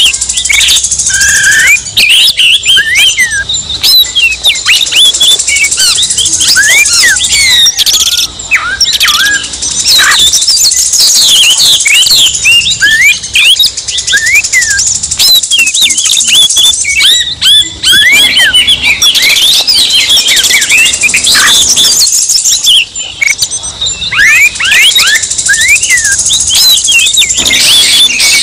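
Oriental magpie-robin (kacer) song: a loud, dense, unbroken stream of fast sweeping whistles and chattering phrases, the agitated rival-challenging song that keepers play to provoke a caged kacer into singing. A steady high hiss runs behind it.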